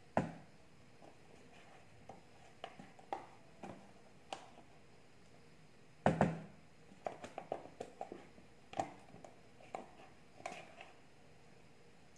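A spoon scraping and tapping the last all-purpose cream out of an opened carton into a plastic tub: scattered light knocks and clicks, with a louder knock just after the start and another about six seconds in, then a quick run of small taps.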